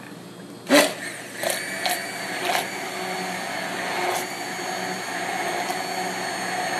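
A sharp knock under a second in, then a hand-held immersion blender starts about a second and a half in and runs steadily at high speed, blending fruit purée in a plastic cup.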